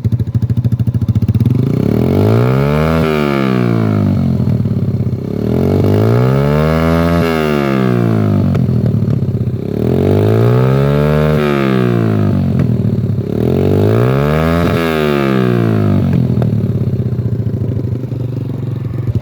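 Yamaha YBR 125's single-cylinder four-stroke engine through an Akrapovic exhaust with no dB killer, idling and blipped four times, the pitch rising and falling with each rev, with sharp cracks near the top of the revs. With the choke pulled fully on, the engine backfires through the exhaust.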